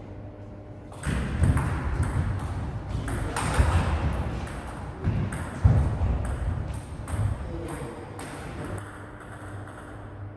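Table tennis rally: the ball clicks off the bats and the table in a quick, irregular string of hits, starting about a second in and ending near the end.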